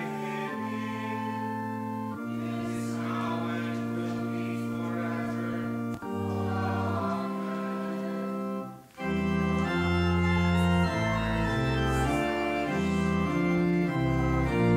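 Church organ playing a slow series of held chords. About nine seconds in it breaks off for a moment, then resumes louder with deep bass notes and chords changing about every half second.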